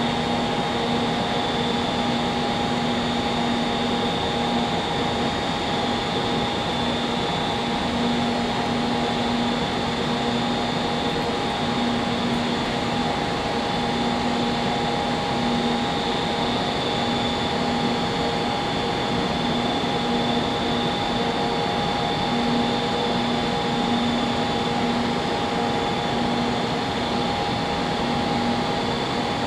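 SRT high-speed train standing at the platform, its cooling fans and electrical equipment giving a steady hum and hiss with several fixed whining tones, the lowest pulsing on and off every second or two.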